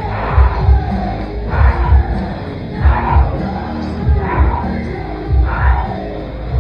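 Background rock music with a heavy, steady drum beat.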